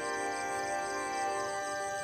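Background music: sustained chords on a keyboard-like instrument, with a light tick repeating at an even pace.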